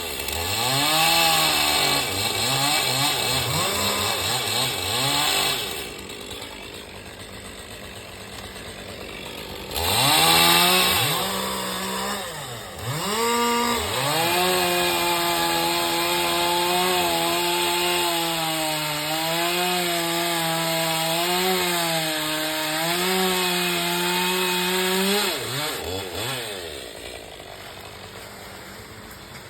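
Chainsaw revving in short bursts, then held at steady full throttle for about ten seconds as it cuts through wood, easing back to idle near the end.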